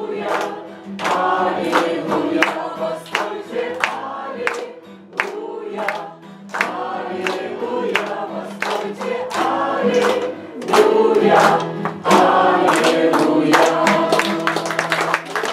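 A congregation singing a lively Russian worship song together, clapping their hands on the beat, with electric keyboard accompaniment.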